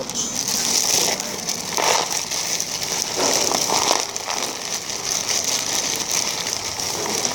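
Black plastic bag holding dry dog kibble crinkling and rustling as hands work in it, with louder bursts about two seconds and three and a half seconds in.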